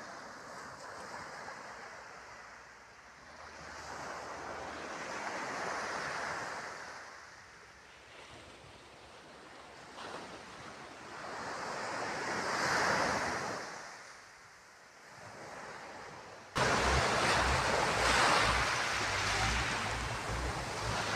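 Sea waves washing in and drawing back, swelling and fading twice. Near the end, wind suddenly buffets the microphone with a loud, rumbling noise.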